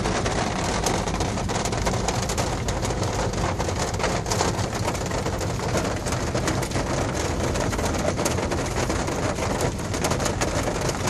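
Heavy rain hitting a car's roof and windscreen, heard from inside the cabin as a dense hiss packed with quick ticks of drops, over the low steady rumble of the car.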